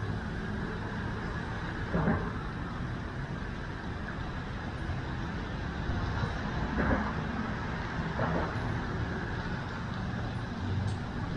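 Steady low rumble of a vehicle's engine and road traffic noise, with a few brief louder moments about 2, 7 and 8 seconds in.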